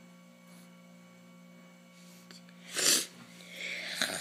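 A sudden loud breathy burst from a person about three seconds in, then a longer, softer breathy sound that stops sharply near the end, over a faint steady hum.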